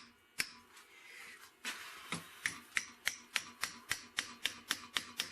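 A run of sharp, evenly spaced clicks, about three a second, while a glued plywood sled fence is being clamped tight. A scraping rustle comes just before the clicks start, about a second and a half in.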